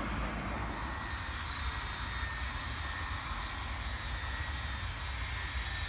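Boeing E-3A Sentry's four TF33 turbofan engines running at a distance as the aircraft taxies: a steady low rumble with a faint, even high whine.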